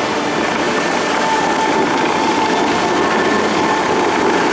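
Bellagio show fountain's water jets and falling spray making a steady, loud rushing hiss.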